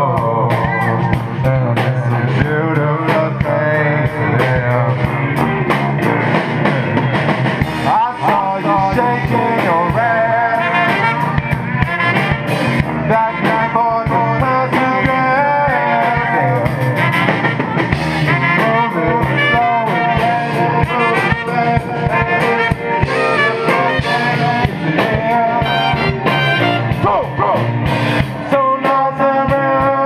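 Live band playing a song: a man singing into a microphone over acoustic guitar, drum kit, tuba, trumpet and saxophone.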